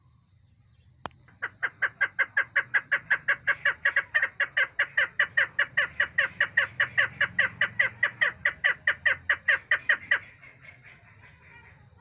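Female chukar partridge calling: a fast, even run of short chuk notes, about six a second, kept up for some nine seconds and then stopping abruptly. A single sharp click comes just before it starts.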